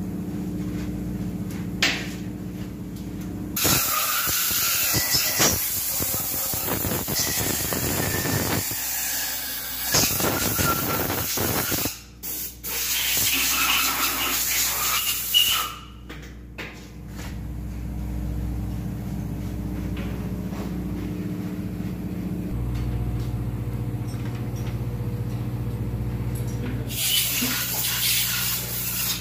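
Loud hissing spray starting a few seconds in and running for about twelve seconds with two short breaks, then again for a couple of seconds near the end, over a steady low hum of running machinery.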